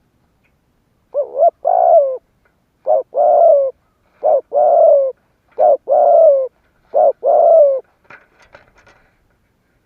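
Spotted dove cooing: five phrases, each a short note then a longer falling coo, about one and a half seconds apart. Faint scratchy clicks follow near the end.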